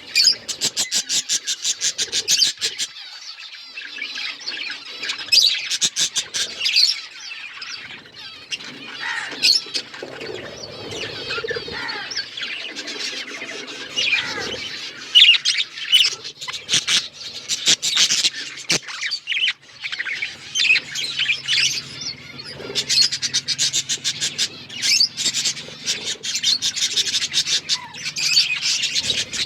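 Several budgerigars chattering to each other in a dense, continuous stream of overlapping high chirps, with a fast run of short repeated chirps in the first few seconds.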